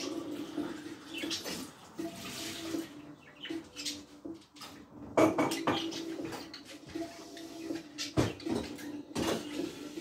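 Pet budgerigars chattering, with short sharp chirps and clicks coming irregularly. The loudest come about five seconds in and again near the end, over a low hum.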